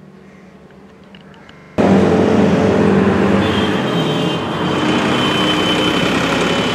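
Steady road traffic noise that cuts in abruptly about two seconds in, after a quiet start; a thin high whine joins it partway through.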